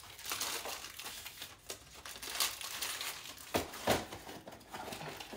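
A cardboard product box and its packaging being handled and opened by hand: steady crinkling and rustling, with two quick knocks close together about two-thirds of the way through.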